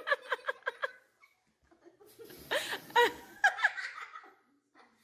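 Young girls giggling in two bouts: a quick run of laughs at the start, then another burst of laughter about two and a half seconds in.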